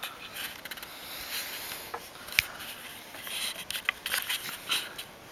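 Scattered clicks, scrapes and rustles of a dog shuffling and nosing about on carpet next to its plastic treat-jug toy, with a sharp click about two and a half seconds in and a busier run of clicks near the end.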